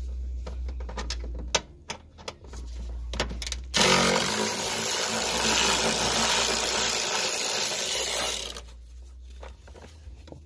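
A few light tool clicks, then about four seconds in a power ratchet runs for about four and a half seconds and stops suddenly, spinning out a long 10 mm bolt.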